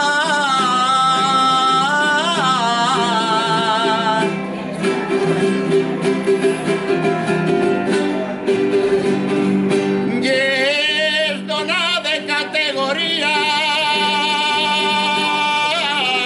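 A man singing an albà, the traditional Valencian praise song, in long ornamented notes with a wavering pitch. About four seconds in, the voice stops for several seconds of instrumental accompaniment with quick strokes; then the singing resumes and ends on a long held note.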